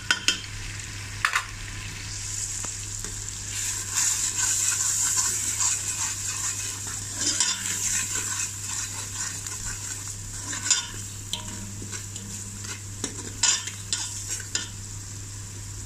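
Onion-tomato masala with ground spices sizzling in hot ghee in an aluminium pot, with a steady hiss, while a steel spoon stirs it, scraping and clicking against the pot now and then. This is the bhunai stage, the spices being fried in the fat.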